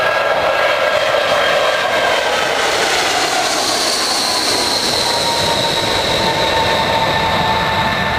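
Vickers VC10's four Rolls-Royce Conway jet engines running loud as the airliner passes low overhead on its landing approach: a steady rumble under several whining tones that slide slowly down in pitch.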